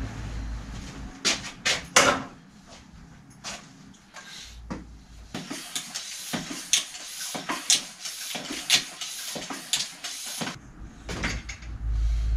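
Clicks, knocks and rattles of hands-on work on a bicycle in a repair stand. From about five seconds in there is a dense run of quick, noisy strokes, and it thins out again near the end.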